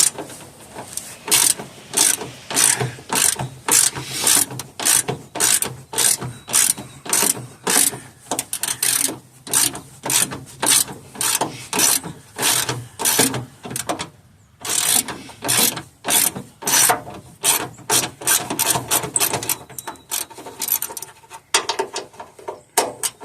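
Hand socket ratchet wrench clicking in quick repeated strokes, about two a second, as a bolt is worked loose by hand, with a brief pause a little past halfway.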